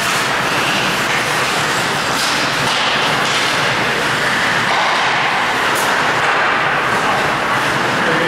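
Steady, loud rink din of an ice hockey game in play, with a few faint sharp knocks.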